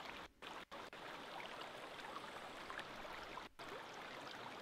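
Faint running water: a steady hiss of flowing river water with scattered small ticks and trickles, dropping out briefly a few times.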